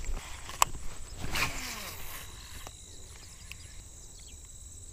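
Cast and retrieve with a baitcasting rod and reel: a sharp click about half a second in, then a short rushing burst about a second later, then quiet outdoor ambience with a faint steady high tone while the line is reeled in.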